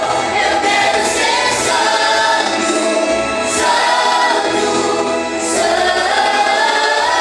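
A group of voices singing a Christian worship song together, with musical accompaniment, in sustained phrases.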